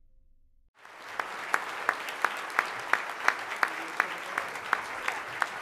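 Audience applauding, starting suddenly about a second in. One nearby pair of hands claps loudly and evenly over it, about three claps a second.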